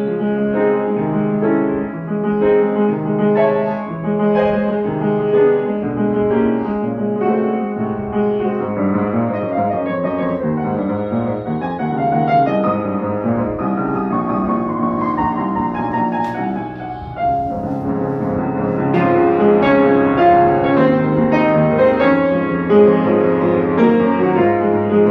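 Upright acoustic piano played continuously, melody over chords; in the middle a run of notes falls in pitch, and the playing briefly quietens about two-thirds of the way through before going on.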